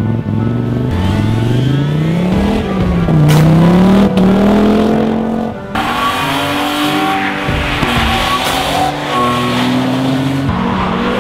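Car engines revving up and down hard as the cars slide sideways on a snowy ice track, with an abrupt change in the engine sound about halfway through. Music plays underneath.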